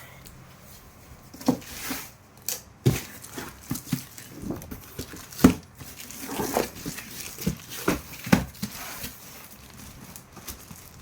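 Packaging being handled and opened: crinkling and tearing of wrapping, with irregular knocks and taps of the box, the sharpest about halfway through.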